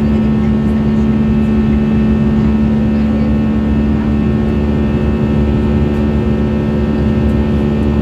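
Airbus A320 engines running with a steady drone and a constant low hum, heard inside the passenger cabin.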